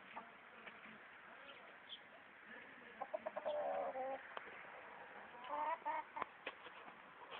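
Chickens clucking, with runs of short pitched calls about three seconds in and again near six seconds, among scattered sharp clicks.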